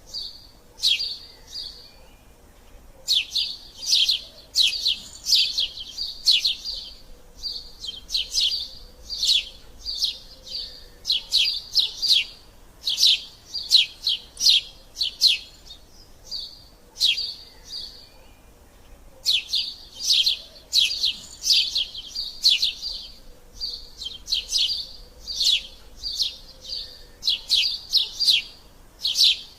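Eurasian tree sparrows chirping rapidly and excitedly in long runs of short, sharp chirps, the busy chatter of sparrows squabbling. The runs break off briefly a couple of seconds in and again around the middle.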